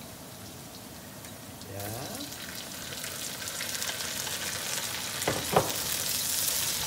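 Food sizzling in hot oil in a pan while it is stirred. The sizzle swells about two seconds in and keeps building, with two sharp knocks a little past the middle.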